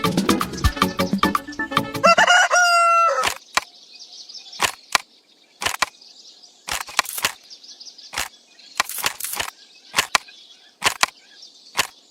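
Music stops about two seconds in and a rooster crows once, a held call that drops in pitch at the end. Then comes a steady high chirring, like insects, with sharp clicks scattered through it.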